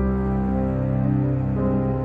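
Soft, slow background music: sustained keyboard chords with notes changing about every half second.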